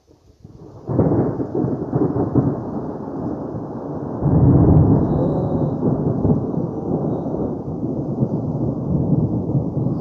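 Thunder: a long rumble that sets in sharply about a second in, swells louder about four seconds in, and keeps rumbling on.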